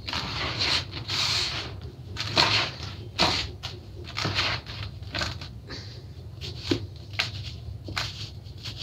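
Dry sandy soil being scooped, stirred and dropped by hand in a plastic tub: a string of gritty rustling hisses, about one every second, over a low steady hum.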